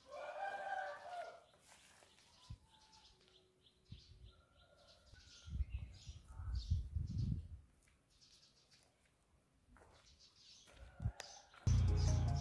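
Birds chirping in the background, with a short pitched call at the start and a low rumble a little past the middle. Music comes in near the end.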